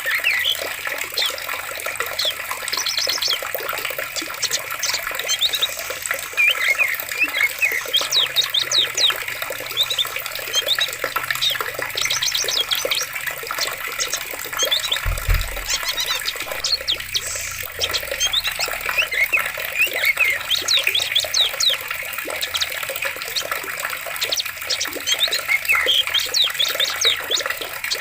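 Flowing water with a steady rush, and birds chirping and trilling over it throughout. A brief low thump about halfway through.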